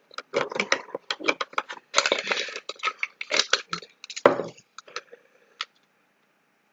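Rapid irregular clicking and clattering of small hard parts being handled and taken apart, with a brief scrape about two seconds in. It stops after about four and a half seconds.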